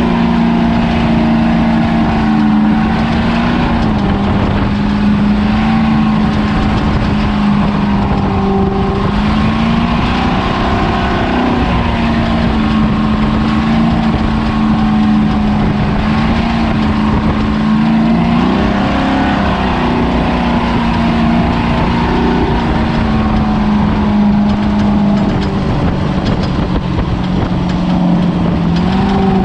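Ford Ranger desert race truck's engine running hard. Its pitch holds steady, then steps down or up several times, with a rise near the end, over a constant rush of tyre, wind and chassis noise.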